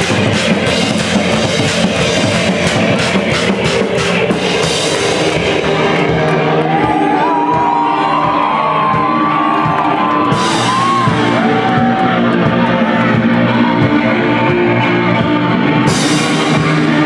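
Two-piece band playing loud live ambient shoegaze music: dense sustained guitar chords over drums. There are quick drum hits in the first few seconds, a bending melodic line in the middle, and cymbal crashes about ten seconds in and again near the end.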